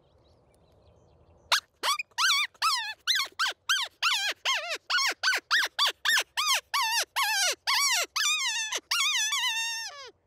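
Hand-blown predator mouth call worked as a run of short, high distress yelps, each falling in pitch, about three a second, the last few drawn out. It mimics a young coyote in distress to lure in coyotes.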